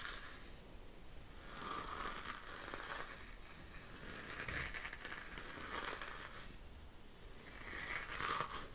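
Soft crinkling and rustling handled close to a microphone, in swells that come and go every second or two.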